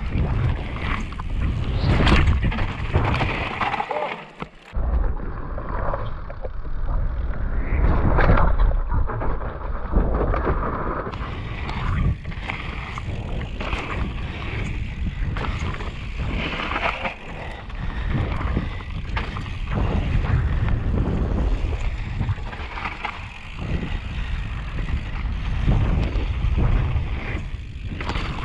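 Mountain bike ridden fast down a dirt trail: wind rushing over the rider's camera microphone, tyre noise on loose dirt, and repeated rattles and knocks from the bike over bumps. The noise drops briefly about four seconds in.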